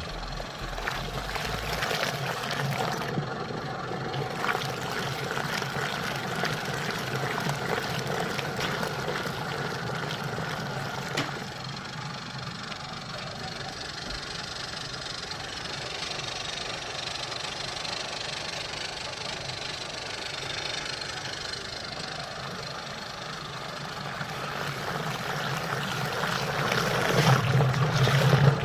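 Homemade 12 V washing machine running: its small motor hums steadily while water churns in the tub, growing louder in the last few seconds.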